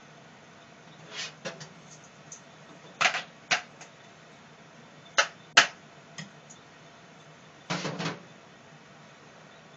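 Kitchen handling sounds: bowls, bottles and utensils being picked up and set down, giving a handful of short clicks and knocks with a brief rattle near the end.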